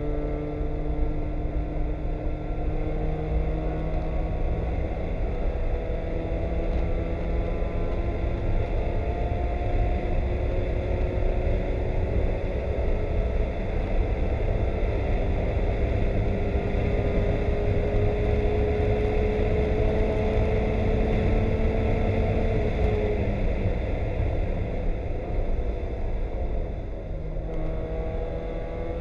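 Spec Miata race car's four-cylinder engine heard from inside the cockpit, its note climbing slowly and steadily under power for about twenty seconds over a heavy low rumble of road noise. Near the end the engine note falls away briefly, then starts climbing again.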